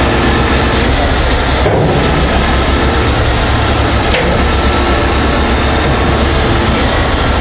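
Heavy diesel engine running steadily: a constant low drone under an even hiss.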